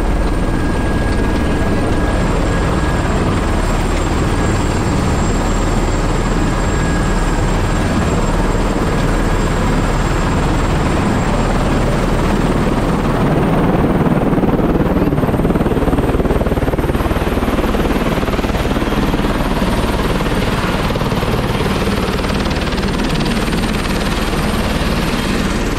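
Helicopter running on the helipad: steady loud turbine and rotor noise with a thin high turbine whine over it. The whine fades about halfway through.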